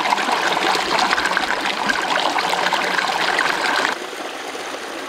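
Steady rush of a stream's flowing water, which turns suddenly quieter about four seconds in.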